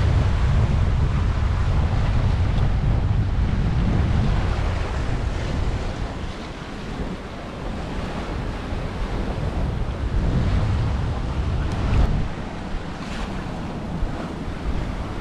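Wind buffeting the microphone over the rush of breaking waves and foaming wake around a small sailing yacht in rough open sea. The wind rumble eases about six seconds in, then comes back in gusts.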